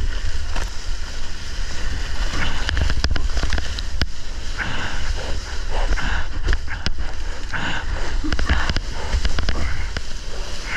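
Water rushing and splashing around a surfboard as it rides a small wave and runs into whitewater, close to the microphone, over a constant low rumble with many short splashy crackles.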